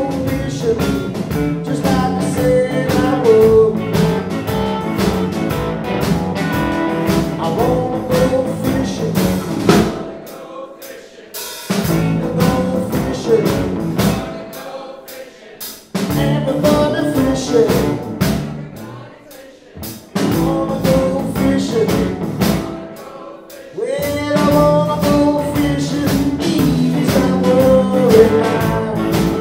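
Live electric blues band playing: electric guitars, bass guitar and drum kit, with singing. About ten seconds in, the band breaks into stop-time, short bursts with near-quiet gaps roughly every four seconds, then comes back in full about five seconds before the end.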